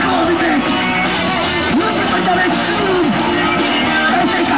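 Hardcore punk band playing live: distorted electric guitar and a drum kit under a vocalist shouting into a handheld microphone, loud and dense without a break.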